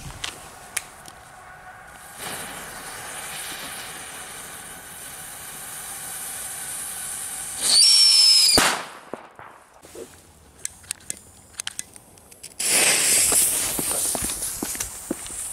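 Firecrackers going off on asphalt: a steady fuse-like hiss, then a loud high whistle of under a second that falls slightly in pitch and ends in a bang. Scattered sharp crackling pops follow, then a loud spraying hiss of burning sparks near the end.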